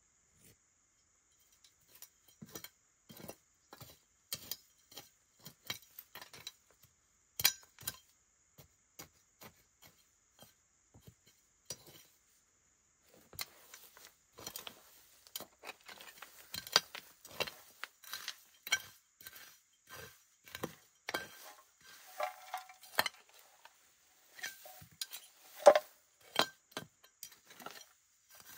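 A small hand tool scraping and digging into dry, stony ground, with irregular scrapes and clinks of loose stones and a few sharper knocks.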